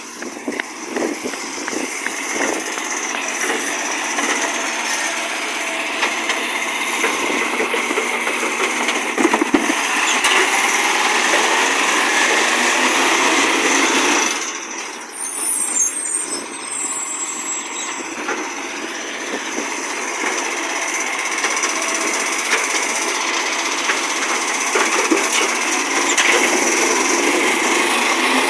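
Garbage truck's engine running loud through a leaking exhaust, building up over the first several seconds. About halfway through it dips for a moment, then comes back suddenly with a brief high squeal over the engine.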